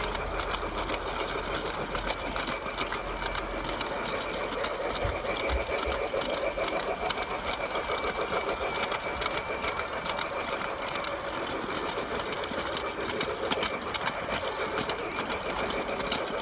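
Small electric motor of a toy train running steadily, a constant whirring buzz with a fast, dense rattle from its gears and wheels on the track.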